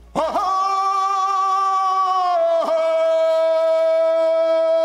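A man's voice singing one long held call: it glides up onto a note, holds it steady, then about halfway through steps down to a slightly lower note and holds that.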